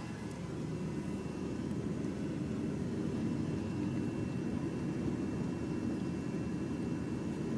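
Road and engine noise inside a moving car: a steady low rumble, with a faint steady high-pitched whine.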